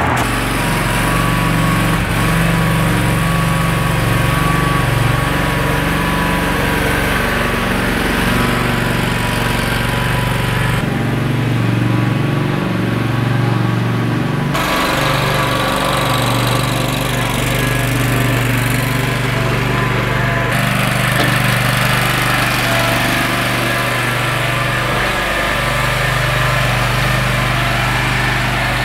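Commercial riding lawn mower engine running steadily while being driven, its pitch wavering slightly, with a few abrupt changes in the sound.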